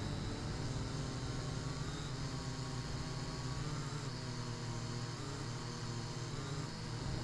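Syma X8W quadcopter's brushed motors and propellers whirring in flight, picked up by a keychain camera mounted on the drone. A steady low hum, with a higher whir whose pitch wavers up and down as the throttle changes.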